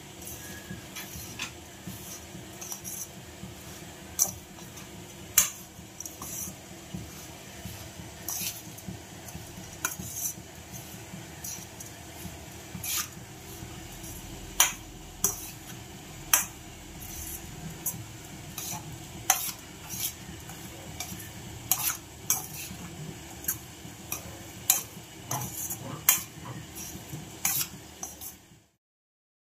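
A steel spoon stirs and scrapes a crumbly steamed rice-flour puttu mixture in a stainless steel bowl. Irregular sharp clinks come about every second or two as the spoon strikes the bowl.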